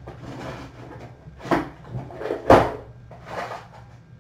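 Handling noises as fly-tying materials are fetched at the bench: a few short rustles and knocks, the loudest about two and a half seconds in, over a steady low hum.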